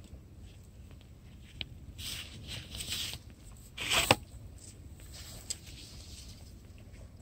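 Close handling noise: rustling from about two to three seconds in, then a sharp knock about four seconds in, with a few small clicks around it.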